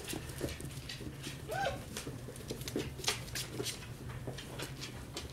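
Puppies' claws clicking and pattering on a wooden floor as they scamper and play, with one short rising-and-falling puppy whine about a second and a half in.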